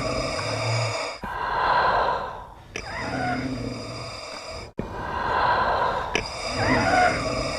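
Darth Vader's respirator breathing sound effect: a mechanical, hissing in-breath and out-breath repeating in a slow, even cycle, about two full breaths.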